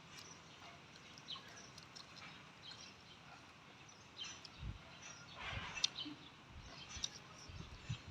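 Faint close-up eating sounds: chewing and wet mouth smacks with small clicks, and soft low thumps in the second half.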